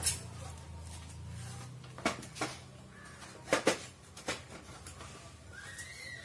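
Handling noise from an LED par light and its cables: a series of sharp clicks and knocks as the fixture and connectors are picked up and fitted, with a short rising squeak near the end.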